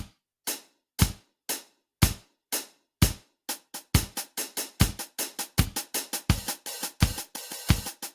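Drum kit voice of a KORG Pa700 arranger keyboard: single drum hits about twice a second, then picking up into a faster, denser beat with a cymbal wash near the end.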